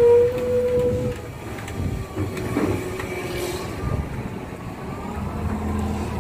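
Heavily loaded Hino FM2P 22-wheeler truck's diesel engine running as the truck passes close and pulls away, with a low rumble throughout. A steady high tone cuts off about a second in.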